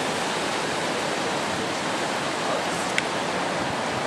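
Steady, even rushing noise with a single short click about three seconds in.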